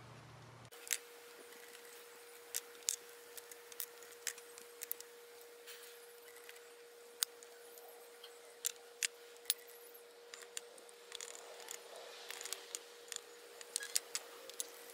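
Sharp, irregular metallic clicks and clinks, a few each second, over a faint steady hum that starts under a second in.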